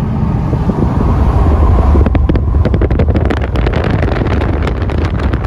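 A car driving at road speed, its low road rumble overlaid by wind rushing and buffeting on the microphone. The buffeting grows gustier and crackly from about two seconds in.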